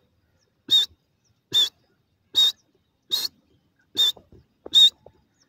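Francolin giving a sharp, high call six times, about one every 0.8 seconds, each short note wavering in pitch.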